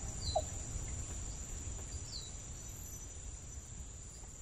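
Rural forest ambience: insects droning steadily at a high pitch, with a bird giving a short falling chirp twice, about two seconds apart, over a low rumble.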